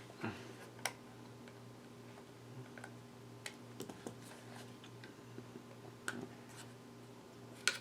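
Scattered small clicks and taps of laptop parts being handled during a RAM and SSD install, a few sharper ones near the start, about six seconds in and near the end, over a steady low electrical hum.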